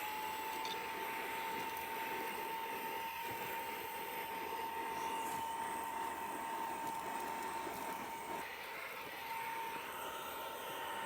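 Fanttik X100 cordless handheld car vacuum running: its motor whine climbs slightly as it spins up at the start, then holds a steady pitch over the rush of air being sucked in, with a brief dip about eight seconds in.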